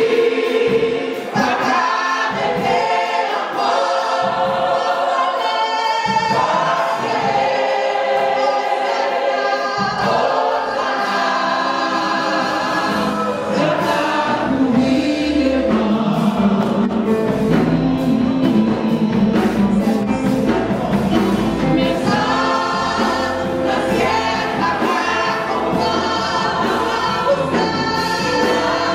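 Gospel choir singing, with a woman leading the song on a handheld microphone.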